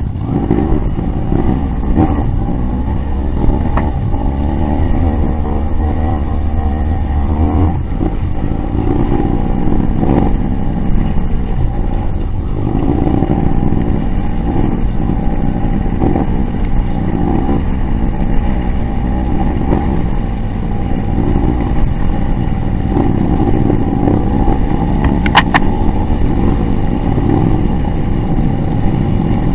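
Dirt bike engine heard from on the bike, running at low speed with the throttle opening and closing in short surges over a rutted, muddy trail. A heavier low rumble lies under it for the first eight seconds or so.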